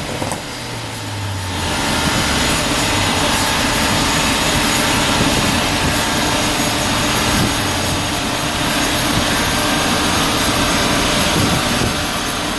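A large dyno cooling fan running with a steady, loud rushing roar that swells in about two seconds in. Under it the tuned Focus ST's turbo four-cylinder runs at low revs after its pull.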